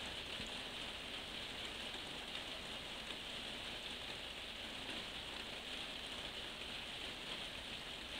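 Steady rain falling, an even hiss that holds without change.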